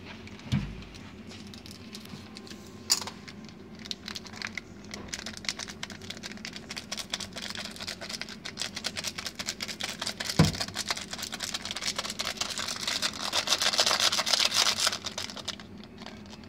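Dry crushed instant noodles crackling and rustling as a hand mixes and crushes them with masala powder in a glass bowl: a dense run of small crunches, busiest a few seconds before the end, with a dull knock about ten seconds in.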